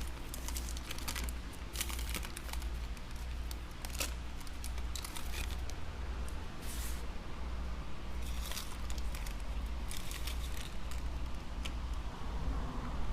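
Thin adhesive strips and their plastic backing film crinkling and tearing as they are peeled and laid onto the tablet's frame, in scattered small crackles and clicks. A steady low hum runs underneath.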